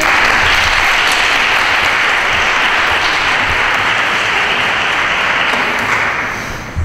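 An audience applauding, steady and then dying away near the end.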